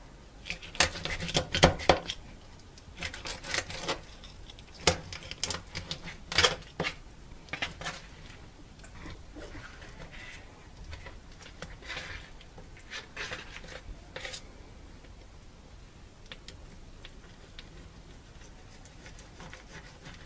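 Knife cutting a fillet off a whitefish along the backbone, the blade clicking and scraping on a plastic cutting board in a quick run of sharp strokes. The strokes thin out and grow fainter after about seven seconds and stop for the last few seconds.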